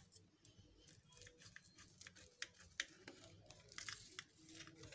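Faint clicks and crinkling of a knife cutting through a slab of set sohan halwa topped with almonds and pistachios, a little denser a few seconds in.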